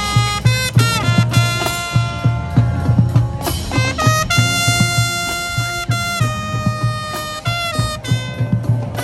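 Marching band playing: the brass section holds long chords and short figures over a steady low drum beat, with a long held chord in the middle.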